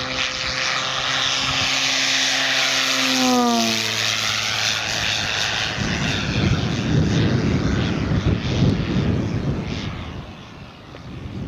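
Propeller of an electric giant-scale RC P-51D Mustang model, a 24x8 two-blade prop with no sound generator, buzzing with a steady pitched tone. The pitch drops about three to four seconds in as the model flies past. It then gives way to a rougher rushing noise that fades near the end.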